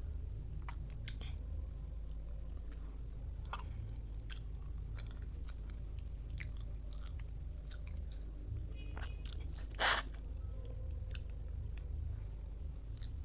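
A person chewing a mouthful of food, with scattered small wet mouth clicks over a steady low hum, and one louder sharp noise about ten seconds in.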